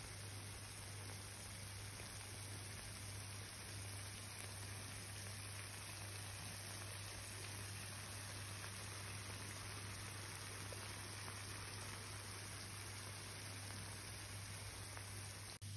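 Paella pan sizzling and crackling steadily as the last liquid cooks off and the rice bottom toasts into socarrat, with a steady low hum underneath. The sound briefly drops out near the end.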